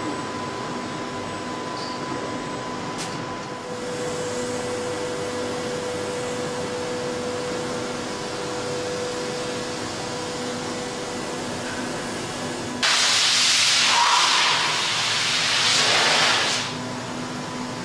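Factory machinery running with a steady hum and a few steady tones. About thirteen seconds in, a loud hiss starts abruptly, eases briefly partway through, and cuts off about four seconds later.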